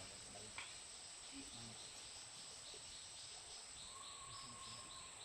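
Faint forest insect chorus: a steady high-pitched drone, joined about halfway through by a rhythmic chirp about three times a second. A thin whistle-like tone sounds for about a second near the end.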